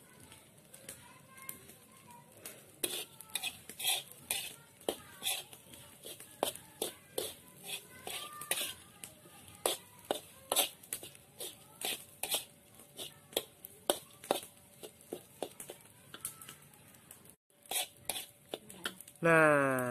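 Metal spatula scraping and clinking against a steel wok as rice is stir-fried, in short irregular strokes about one or two a second.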